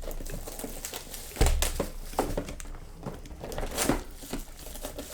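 Card-box packaging being handled: plastic crinkling and rustling with scattered light clicks, and one low thump about one and a half seconds in.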